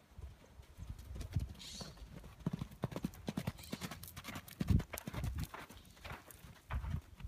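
Young horse galloping loose on a sand arena: a quick, irregular run of hoofbeats on sand, loudest a little past the middle.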